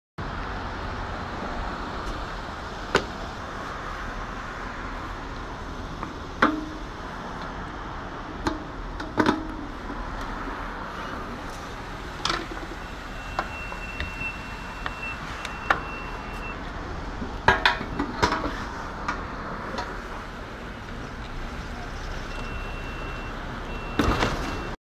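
Clicks and metal clanks from a gas pump and its fuel nozzle being handled, over a steady background rush. A high, steady electronic beep from the pump sounds in two spells about halfway through and again near the end.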